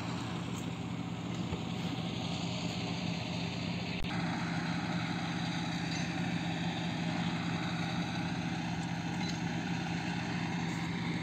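A steady engine drone, a motor running at constant speed, whose tone shifts slightly about four seconds in.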